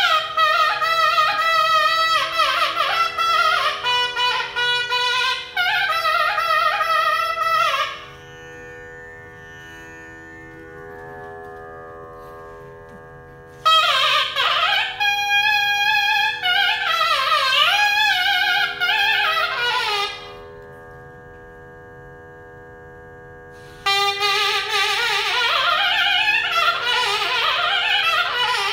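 Nagaswaram playing a slow Carnatic melody full of gliding, bending notes, in phrases several seconds long. Pauses of a few seconds separate the phrases, and in them only a steady drone continues.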